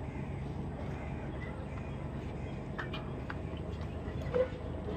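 Open-air riverside ambience: a steady low rumble, with a few faint clicks and one short call about four and a half seconds in.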